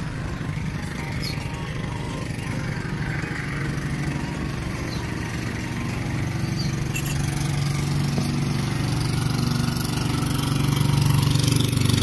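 Small motorboat's engine running steadily as the boat passes close by, growing louder over the last few seconds.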